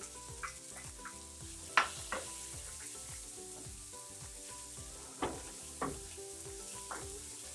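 Sliced bitter melon sizzling in a frying pan with sautéed onion, garlic and tomato, with a few sharp clacks of a utensil against the pan as it is stirred.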